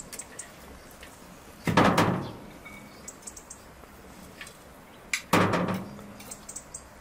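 Metal skimmer scooping cooked rice from a large steel pot: two dull scraping knocks against the pot a few seconds apart, with light clinks in between.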